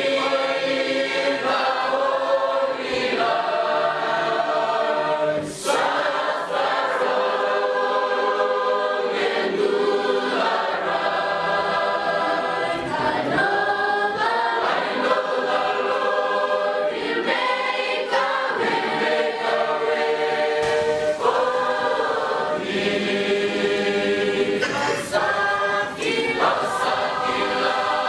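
A choir singing together, many voices in harmony, with no drums or bass under them.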